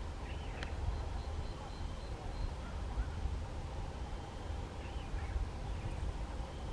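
Faint bird calls: two short arching chirps, about half a second in and again about five seconds in, and a quick string of about six short high notes in between. All sit over a steady low rumble.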